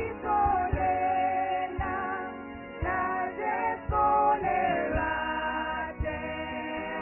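Women's vocal group singing a gospel song in close harmony into microphones, backed by a band with a steady kick-drum beat and bass guitar.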